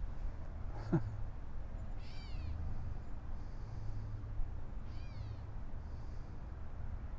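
A cat meowing twice, two short high-pitched calls that rise and fall, about three seconds apart. A brief sharp sound comes about a second in, over a steady low background hum.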